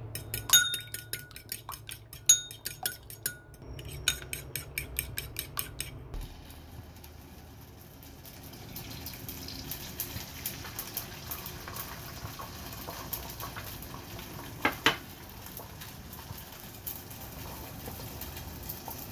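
Fork beating two raw eggs in a ceramic bowl: rapid clicking of the tines against the bowl for about six seconds, with a short break halfway. Then beaten egg frying in oil in a wok with a steady light sizzle and small crackles, and two sharp knocks near the end as a silicone spatula scrambles it.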